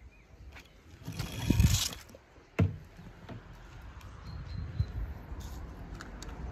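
Handling noise of small die-cast toy cars being picked up and set down: a rustle about a second in, then one sharp click about two and a half seconds in and a few lighter clicks, over a low rumble of wind on the microphone.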